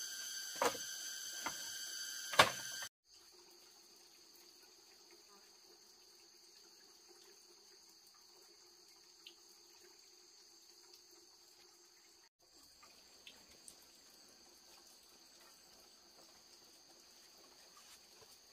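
Insects calling in a steady high-pitched drone, with three sharp knocks in the first few seconds. About three seconds in the level drops suddenly, and fainter insect calls go on.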